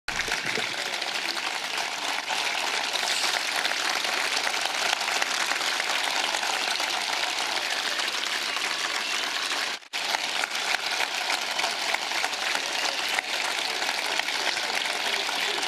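Large crowd applauding, a dense steady clapping that breaks off for an instant about ten seconds in.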